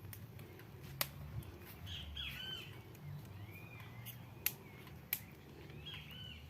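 Birds calling faintly, a few short chirping calls spread through, with a few sharp clicks and a low background rumble.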